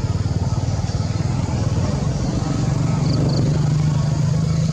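A motor vehicle engine running steadily, its low hum rising slightly in pitch about three seconds in.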